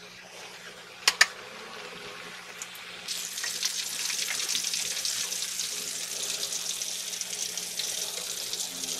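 Flour-coated chicken pieces deep-frying in hot oil in a wok: a crackling sizzle that grows louder about three seconds in and then holds steady. Two sharp clicks just after a second in.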